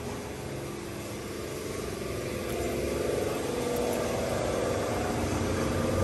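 An engine idling steadily, getting gradually louder.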